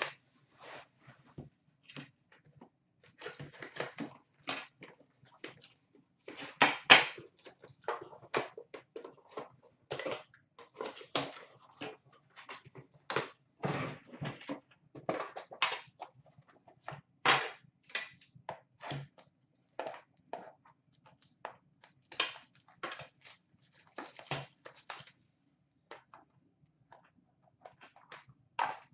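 Irregular taps, clicks and rustles of a sealed hockey card box being unpacked by hand: its wrapping cut and pulled off, and the metal tin opened and its lid set down. The loudest knocks come about 7 and 17 seconds in.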